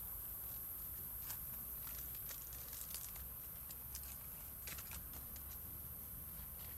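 Faint forest ambience: a steady high-pitched hiss with scattered light clicks and crackles.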